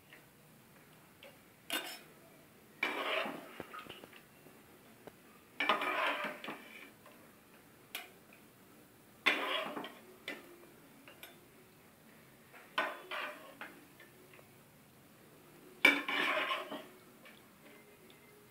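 Slotted spatula scooping boiled cauliflower florets out of a wok and tipping them into a stainless steel mesh strainer: about seven separate scoops a few seconds apart, each a short clatter with a brief rustle after it.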